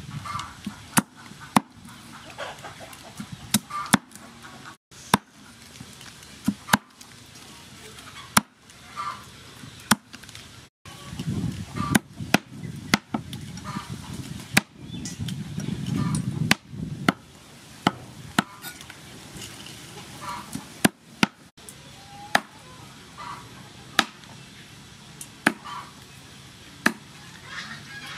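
Cleaver chopping river prawns on a round wooden chopping block: sharp knocks of the blade hitting the wood, irregularly spaced at about one a second.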